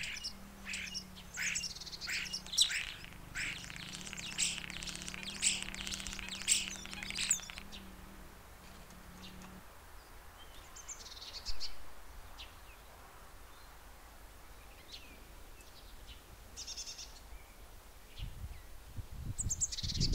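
Small birds chirping and twittering, busy for the first several seconds and then only now and then. Under them a faint low steady hum stops about halfway. Low rumbles come near the end.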